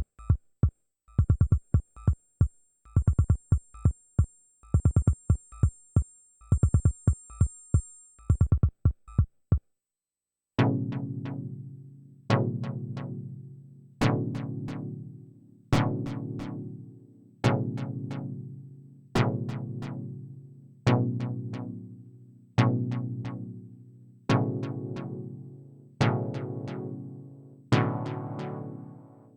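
Dave Smith Evolver synthesizer playing patches: first a fast drum-machine-style pattern of short kick and click hits, which stops about ten seconds in. After a short break a new patch sounds a single struck note about every second and three-quarters, each one decaying away.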